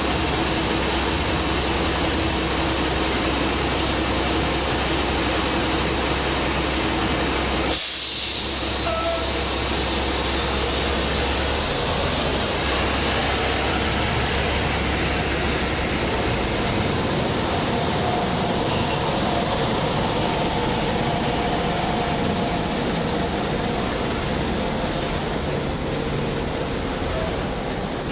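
Steady vehicle noise with a low engine hum; about eight seconds in it cuts abruptly to a different vehicle recording that opens with a burst of hissing, then carries on as even traffic-like noise.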